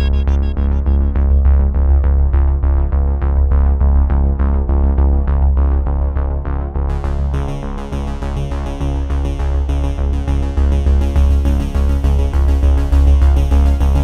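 Electronic background music with a steady synthesizer beat. The high end is filtered away, gradually opens up, and comes back in full about seven seconds in.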